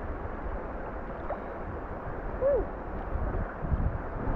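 Steady wash of water around a kayak with wind rumbling on the microphone, a few low surges near the end. A short rising-and-falling tone sounds about halfway through.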